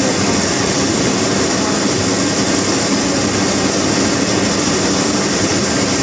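Industrial continuous belt fryer at work: a loud, steady hiss of frying oil over the even hum of the machine's running parts.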